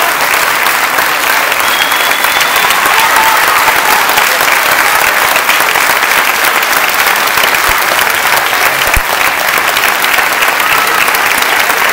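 Audience applauding steadily, a dense, even clapping of many hands.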